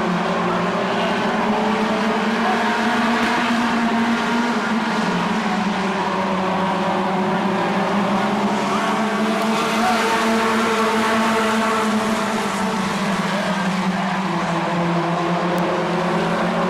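A pack of short-track stock cars racing together: many engines running hard at once, a loud, steady drone whose pitch wavers a little as the cars circle the oval.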